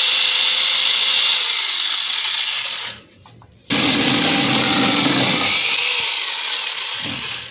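Angle grinder fitted with a chainsaw attachment, the chain sawing into a wooden frame. It runs loudly, cuts off suddenly about three seconds in, then starts again with a deeper tone as the chain bites into the wood, chips flying, until near the end.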